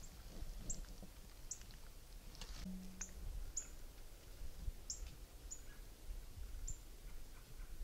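A small bird calling with short, high chip notes that drop in pitch, about one a second at irregular spacing.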